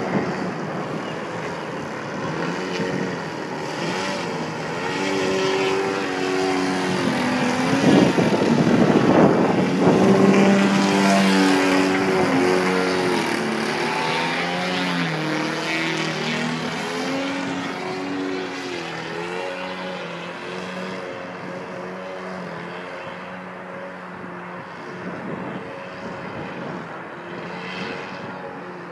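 Radio-controlled 3DHS Extra 300SHP aerobatic model plane flying overhead, its motor and propeller humming with the pitch stepping up and down as the throttle changes. Loudest about a third of the way in, then fading as the plane flies farther off.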